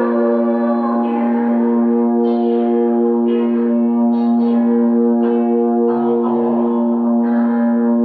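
Music: a steady held drone with a new note or chord entering about once a second.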